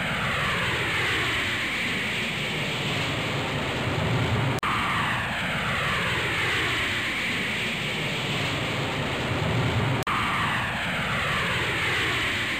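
Looped storm sound effect: a steady rushing roar of wind with a falling, sweeping whoosh that repeats about every five and a half seconds. It cuts out for an instant twice, where the short loop restarts.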